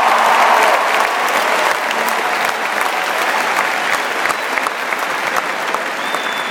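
A large crowd applauding and cheering, dense clapping that slowly eases off, with a few voices crying out over it.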